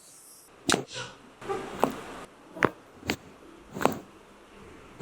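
A series of sharp slaps or knocks, about six over a few seconds at uneven spacing, some with a short swishing lead-in.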